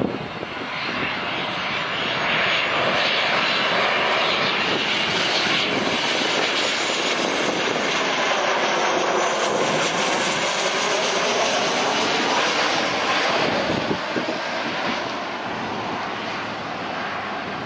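Jet roar of a Southwest Boeing 737's CFM56 turbofans at approach power as the airliner passes low overhead with gear down. The sound swells over the first couple of seconds, holds loud through the pass, and eases off in the last few seconds as the plane moves away.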